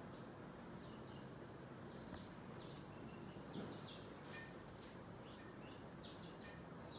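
Small birds chirping faintly in the background: short, high, quick calls, several to a second at times, over a steady low hiss.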